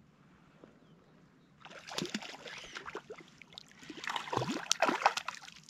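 Water splashing and sloshing as a small hooked rainbow trout thrashes at the surface beside a float tube, starting about a second and a half in and growing busier and louder toward the end, with sharp crackling splashes.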